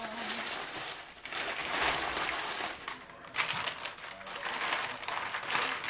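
A thin plastic shopping bag and packaged candy bags rustling and crinkling as they are handled and pulled out, in uneven bursts with short pauses.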